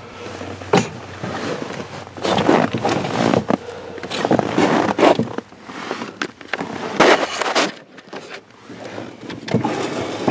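A brake pedal being pumped by foot, with bursts of scuffing and knocking about every two seconds as the boot works the pedal. The pedal sinks to the floor and won't pump up, because air is trapped in the brake lines.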